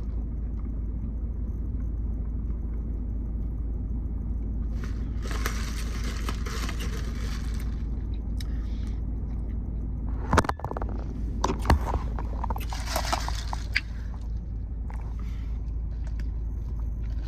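Steady low rumble inside a car, with stretches of rustling and a cluster of sharp clicks and knocks about ten to twelve seconds in.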